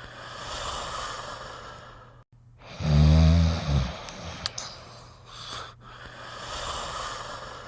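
Snoring: a drawn-out breathy breath, then about three seconds in one loud, low snore lasting about a second, followed by softer breathy breaths. A faint steady hum lies underneath.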